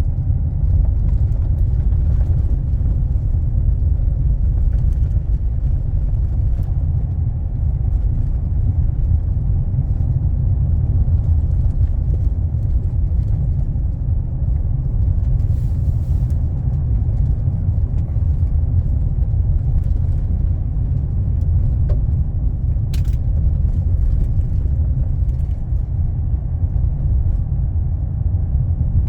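Blizzard wind rumbling steadily on the microphone.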